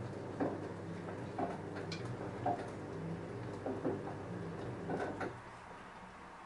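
LG F10A8HDS5 front-loading washing machine tumbling a load of jeans: a low motor hum with irregular knocks and clacks as the drum turns, stopping about five seconds in as the drum pauses.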